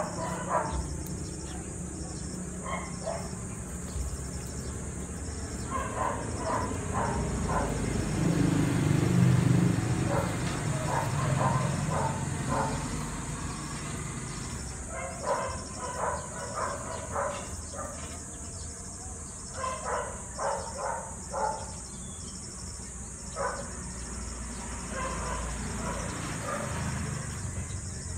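Steady high-pitched chorus of crickets and other insects. Scattered bursts of quick repeated chirps or clicks come through it, and a louder low rumble swells about nine seconds in.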